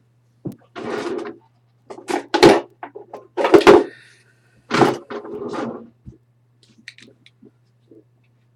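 Packaging being handled: a run of rustling scrapes and several sharp knocks, loudest about two and a half and three and a half seconds in, then a few faint clicks.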